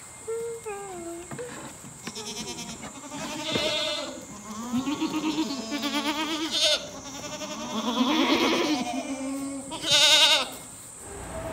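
Several goats bleating one after another, some calls overlapping, in wavering, quavering cries; the loudest bleat comes near the end.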